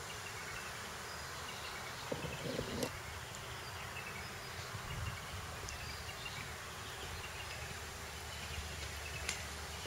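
Outdoor wildlife ambience: a steady insect hiss with faint scattered high chirps, and a brief louder knocking sound about two seconds in.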